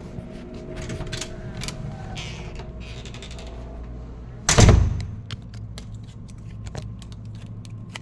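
Handling noise: scattered light clicks and a stretch of rustling, then one loud, heavy thump about halfway through, over a low steady hum.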